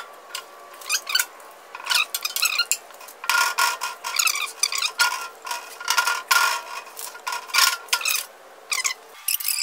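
A 16-gauge steel strip scraping and clattering against a manual sheet metal brake as it is slid in and lined up, a string of short irregular metal scrapes with a faint ringing note.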